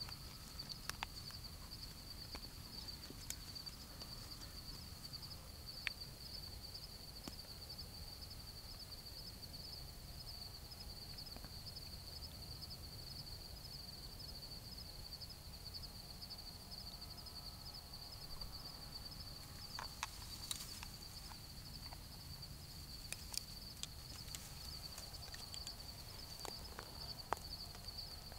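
A steady, high, finely pulsing insect trill goes on throughout. Over it come occasional faint clicks and rustles of clothing and handling, more often in the second half.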